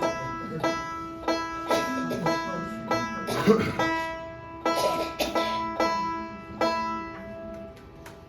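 Banjo plucking a slow run of single ringing notes, evenly spaced, between songs. Brief louder bursts come about three and a half and five seconds in, and the notes die away near the end.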